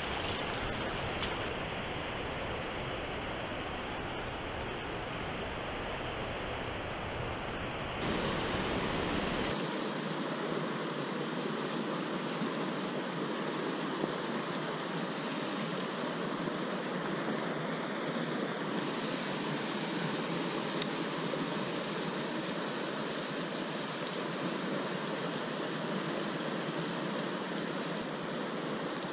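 Steady rushing of a river flowing over a shallow rocky riffle. The tone of the water changes suddenly about eight seconds in.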